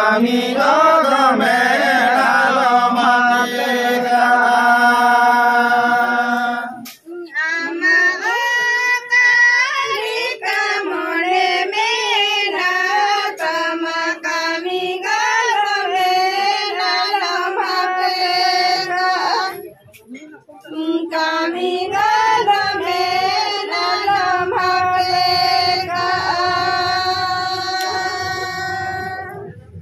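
A group of people singing a song together in long, wavering held notes, with men's and higher voices mixed. The singing breaks off briefly about seven seconds in and again about twenty seconds in.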